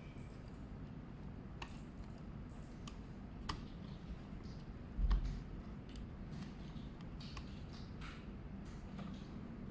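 Scattered light clicks and taps of small plastic parts of a Phomemo D30 label printer being handled during disassembly, with one soft, louder thump about five seconds in.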